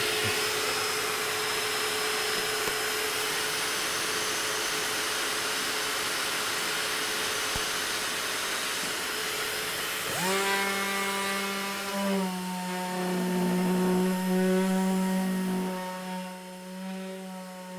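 Dust extraction running with a steady hiss. About ten seconds in, a random orbital sander starts up and runs at a steady pitched hum as it sands a gelcoat composite panel, its pitch settling slightly lower once it is working on the surface.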